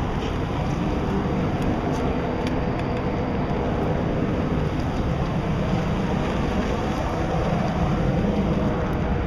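Wind rushing steadily over the microphone, a constant low rush with no breaks.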